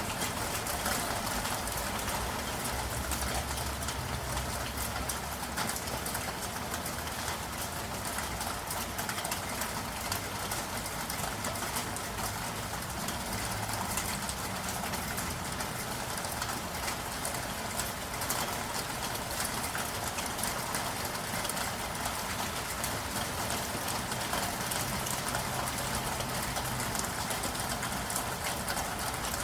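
Steady rain falling, with a patter of drops, over a low, shifting rumble of city traffic.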